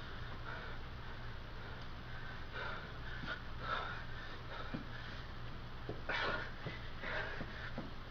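A man breathing hard in repeated noisy breaths while skipping rope, with a few faint taps and a steady low hum underneath.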